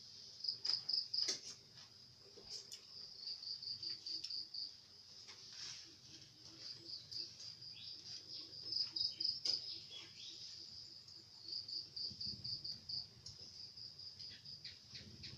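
Crickets chirping in rapid pulsing trills, with a few faint clicks and taps.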